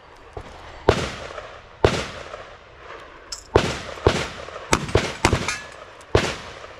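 Gunshots in a cowboy action shooting stage: about eight shots at uneven spacing, several coming in quick succession around the middle, each trailing off in a short echo.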